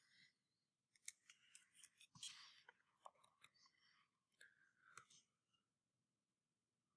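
Faint computer keyboard keystrokes and mouse clicks, a scattering of soft, irregular taps that stop about five seconds in.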